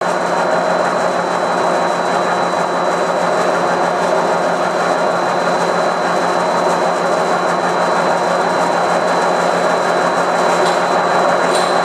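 CNC vertical turning lathe (1516F3) hard-turning a hardened bearing-steel cage with a ceramic cutting tool: a steady, dense machining noise with a low hum and a thin high whine, and a few faint ticks near the end.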